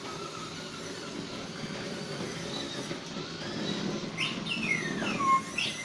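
R2-D2 sound effect: a burst of electronic whistles and warbling beeps sweeping up and down in pitch, starting about four seconds in over a steady low hiss.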